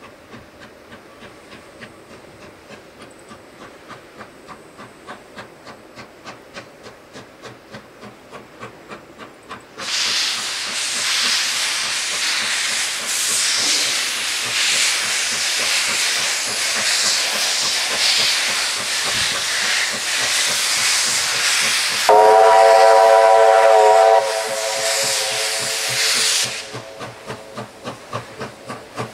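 China Railways QJ 2-10-2 steam locomotive working a loaded coal train, its rhythmic beat growing louder as it approaches. About a third of the way in, a loud steam hiss starts as it passes. Near the two-thirds mark its steam whistle sounds loudly for about two seconds in several tones, then fades as the hiss stops, and the rhythmic beat returns near the end.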